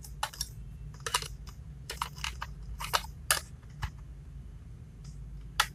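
Batteries being fitted back into a plastic toy remote control's battery compartment: about a dozen sharp, irregular clicks and small plastic knocks.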